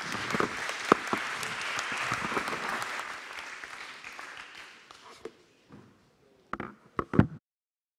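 Audience applauding in a hall, dying away over about five seconds. A few short knocks follow near the end, then the sound cuts off abruptly.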